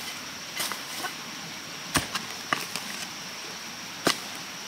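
A few sharp knocks or impacts, about four, the loudest about two seconds in, over a steady high hiss.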